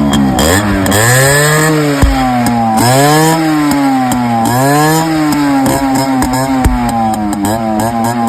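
Motorcycle engine being revved over and over, its pitch rising and falling about every second and a half.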